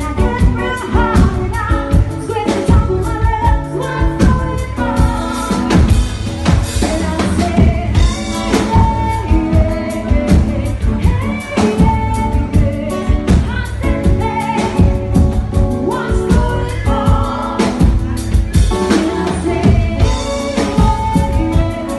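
Pop song with singing over a drum kit, a steady beat and bass.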